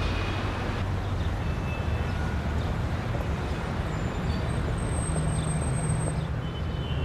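Steady traffic noise: an even, low rumble.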